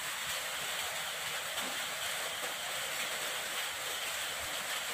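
Steady, even hiss of background noise with no distinct event.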